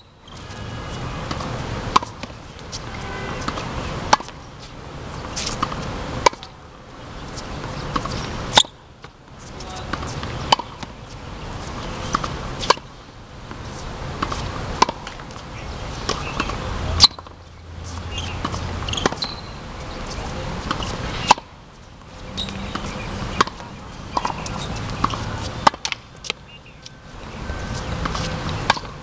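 Tennis racket striking balls in a steady drill: a sharp pop about every two seconds, over a steady background noise that swells between the hits.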